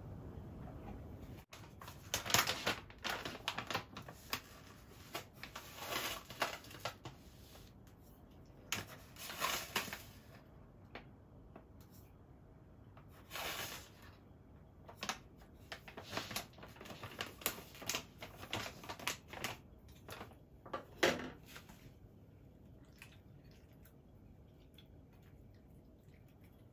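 Liquid pouring from a carton into a pot, cut off after a second or so, then a plastic pouch of stevia sweetener being handled and opened: irregular crinkling and clicking in short bursts that thin out near the end.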